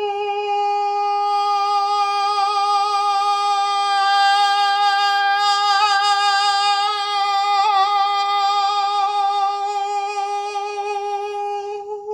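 A man's voice holding one long sung note at a steady pitch. Its tone grows sharper and brighter toward the middle and softens again near the end as he adds and then drops vocal-fold muscle action. This is a smooth transition from head voice through interior vocal edge into chest voice and back on the same pitch.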